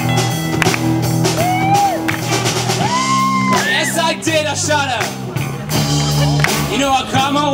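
Live rock band playing: electric guitar, electric bass and drum kit, with a young singer's voice over it, holding one long note about three seconds in.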